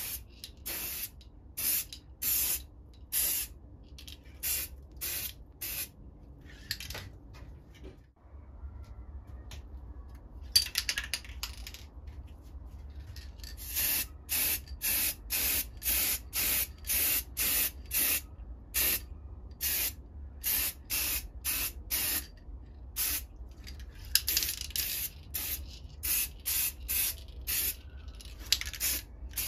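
Aerosol spray paint can spraying a metal oil lantern in short hissing bursts, about two a second, with a break of a couple of seconds about a third of the way in.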